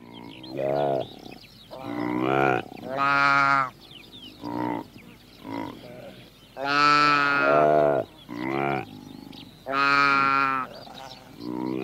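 A series of about ten drawn-out animal calls, each from half a second to a second long, some bending up or down in pitch.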